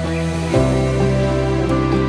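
Soft, slow instrumental background music with long held chords; the chord changes about half a second in.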